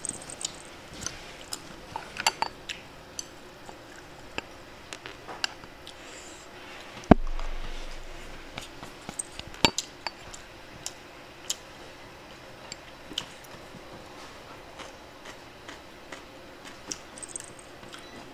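Chopsticks clicking and scraping against a ceramic bowl during eating, in scattered sharp clicks, with one louder knock about seven seconds in.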